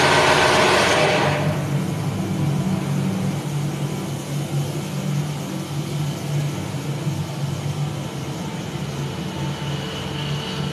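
A loud rushing noise that cuts off about a second in, then an engine running with a steady low hum.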